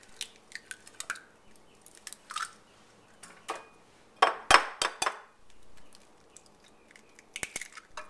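Two eggs cracked by hand into a small nonstick bake pan, heard as small scattered clicks and eggshell crackles. A burst of several loud, sharp taps comes about halfway through, and more crackling near the end as the second egg is broken open.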